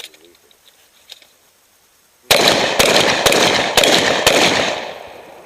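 Shotgun firing five rapid shots about half a second apart during a practical shooting stage, each shot ringing on and fading away over about a second after the last.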